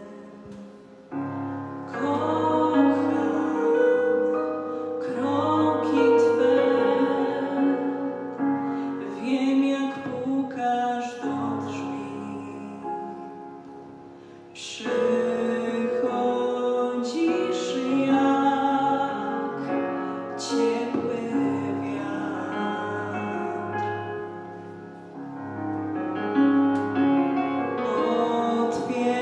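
A young woman singing a slow song in Polish into a microphone, over an instrumental accompaniment of sustained notes. Her phrases break off briefly about a second in, about halfway through, and a few seconds before the end.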